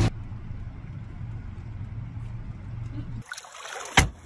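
Steady low drone of a boat's engine under water noise. Near the end it gives way to quieter water sounds with one sharp knock, the loudest sound here.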